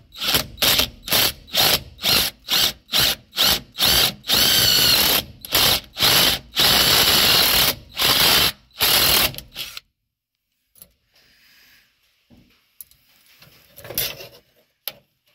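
Cordless drill boring a hole through a truck's dash panel, run in many short trigger bursts with two longer runs, stopping about ten seconds in. Faint handling noises follow.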